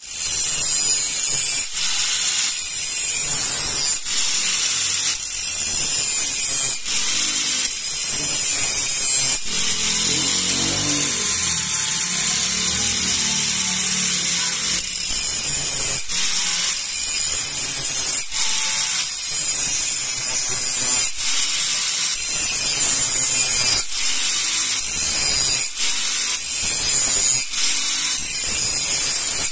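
Handheld angle grinder grinding the metal exhaust muffler tip of a Suzuki Gixxer SF 250, a loud high hissing whine with brief dips every second or two. It runs steadier for a few seconds near the middle.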